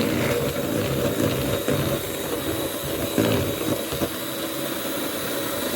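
Electric mixer running steadily, beating cake batter.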